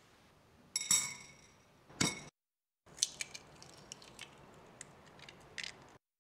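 Egg cracking over a metal spiral egg separator on a glass bowl: a ringing clink and a sharp knock, then small crackling clicks and a soft squish as the shell is pulled apart and the white drips through.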